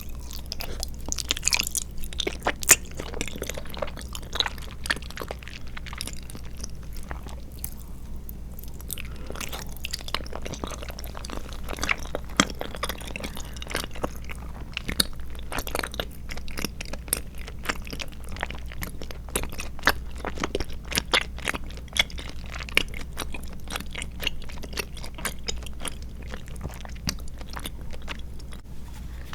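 Close-miked chewing of tapioca pearls with milk tea jelly and coconut milk jelly: a dense, continuous run of small clicks and smacks, with no talking.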